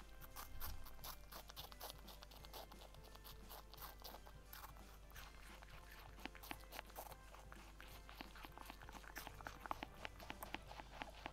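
Pet rabbit chewing, a quiet run of small, irregular crisp crunches.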